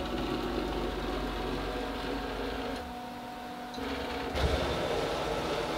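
Servo motors and ball screws of a Techno CNC router driving the axes through the homing cycle: a steady mechanical whine and hum. The sound drops about three seconds in and picks up again, louder, about four and a half seconds in, as the axes stop and start against their homing switches.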